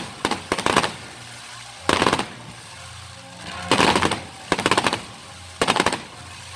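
Fireworks going off in volleys of rapid bangs, about five short bursts, each a quick string of cracks lasting under half a second.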